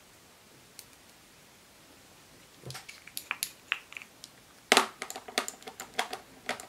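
Small UV gel polish bottle shaken by hand, giving a run of light, irregular clicks and taps. The clicks start about two and a half seconds in, and a louder click comes about five seconds in.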